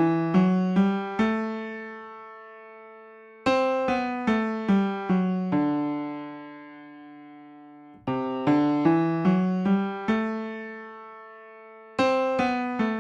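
Piano playing short breathing melodies that rise and fall, each phrase a quick run of about six notes ending on a held note that fades away, a new phrase starting roughly every four seconds.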